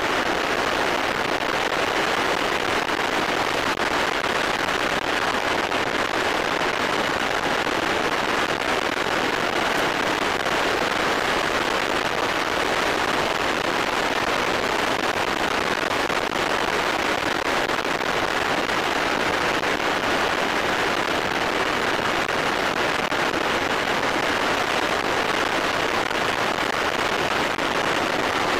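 Steady rushing noise of a Hanuman ultralight aircraft in flight, its engine, propeller and the airflow mixed together as picked up by a camera mounted on the aircraft.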